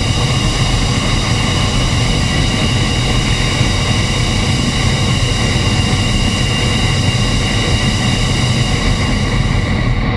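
MiG-29's twin RD-33 turbofan engines running steadily on the ground, heard from outside the jet: an even, high multi-tone whine over a constant low rumble.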